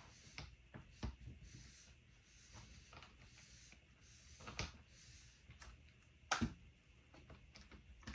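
Light clicks and taps of a clear acrylic stamping plate and paper being handled and pressed on a Precision Press Advanced stamping platform, with a sharper click about six seconds in.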